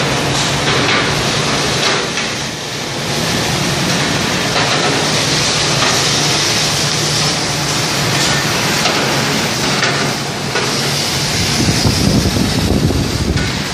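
Industrial washing machine for leaf-spring leaves running: a steady, dense wash of noise with a few light knocks.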